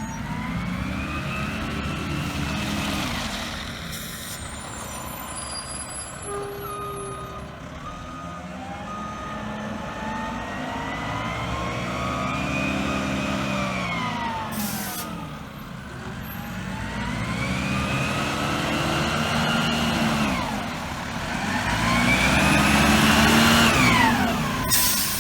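Waste Connections garbage truck 201050 working: a high squeal and the engine note rise and fall together about four times. Two short air hisses come through, one about halfway and one near the end.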